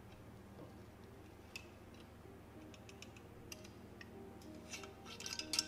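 Faint clicks and light taps of a stainless steel rice mold against the rice pot and plate as rice is scooped and plated. The taps turn into quicker, louder clinks near the end.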